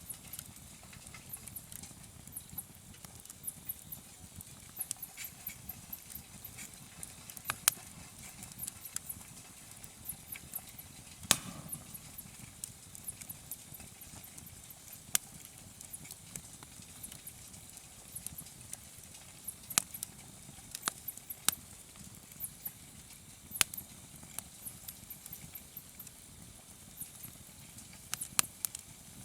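Wood campfire crackling, with irregular sharp pops over a low steady rush of burning; one of the louder pops comes a little over a third of the way in.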